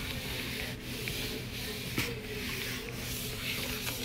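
A cloth wiping back and forth across a wooden desktop: a dry rubbing hiss that swells and fades with each stroke.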